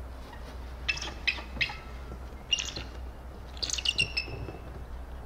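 Bald eagle calling, a series of high, thin chirping notes. Three quick notes come about a second in, one near the middle, then a rapid run of several near the end.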